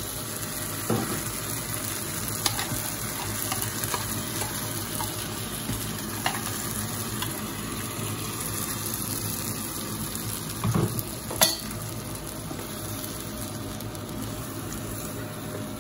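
Butter chicken gravy sizzling steadily in a kadai as thick ground paste is scraped in from a steel bowl and stirred, with a few knocks of bowl and ladle against the pan, the loudest about two-thirds of the way through.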